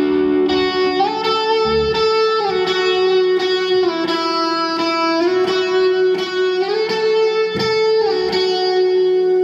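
Slow, sustained electric guitar chords opening a song, each chord held and changing every second or so, with no drums yet.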